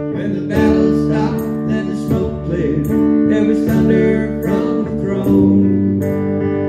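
Instrumental break in a slow country song: solid-body electric guitar strummed about twice a second over held chords.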